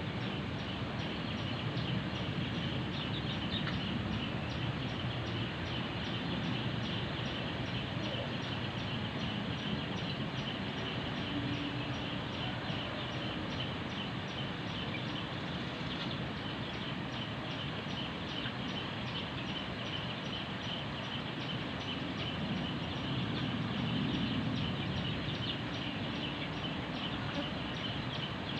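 House sparrows chirping over a steady outdoor background with a low rumble, with a fast, even high ticking at about two to three a second throughout.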